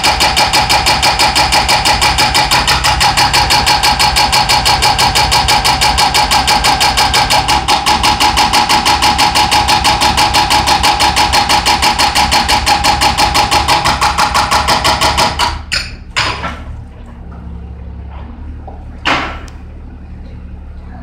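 Hydraulic breaker on a Cat mini excavator hammering a concrete floor in rapid, steady blows over the running diesel engine. The hammering stops suddenly about three-quarters of the way through, leaving the engine running with a few separate knocks.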